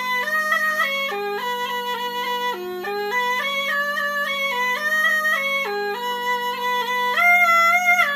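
A reed wind instrument with a drone playing a melody of held notes that step up and down over one steady drone note, with a louder high phrase near the end.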